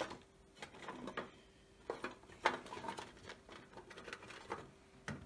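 Irregular light knocks, clicks and rustles of helmet liner parts being picked up, turned over and set down while being sorted by size, over a faint steady hum.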